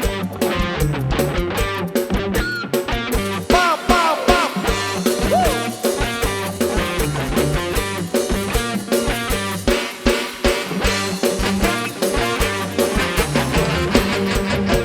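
Live band playing an instrumental passage of a Thai Isan song, with electric guitar over a steady drum-kit beat.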